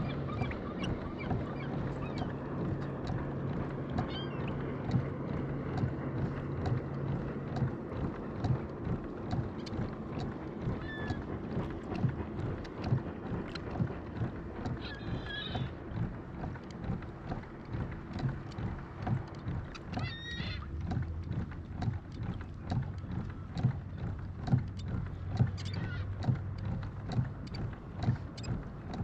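Fishing boat's motor running steadily at trolling speed, its low hum shifting pitch a couple of times, with frequent small knocks and slaps throughout.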